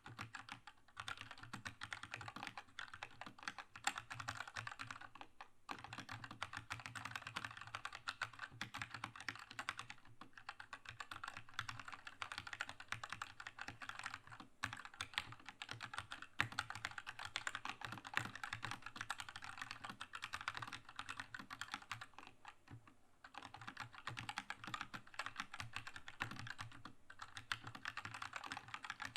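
Continuous fast typing on a Keychron K2 mechanical keyboard with red linear switches: a dense stream of key clacks, broken by brief pauses a few times.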